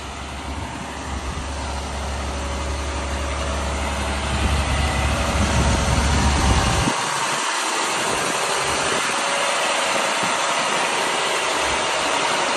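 Diesel engine of a 2009 International 4400 bucket truck idling steadily, growing louder over the first few seconds.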